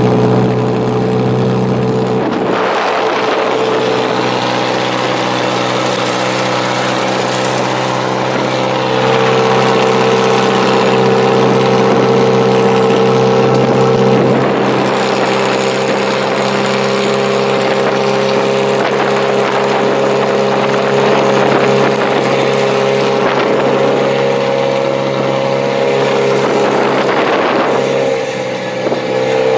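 Motor-vehicle engines running hard at steady high revs, a loud continuous drone that holds its pitch, with scattered knocks.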